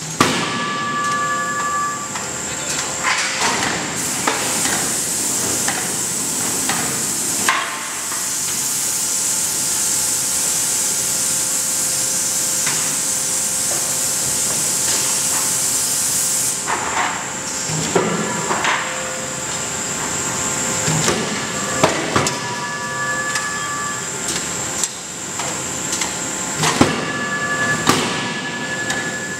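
Forge shop machinery working hot steel: a roll forging machine preforming a glowing billet for a connecting rod, with scattered metallic clanks and knocks. A long hiss starts about 4 seconds in and cuts off suddenly about 16 seconds in, over a faint steady machine whine.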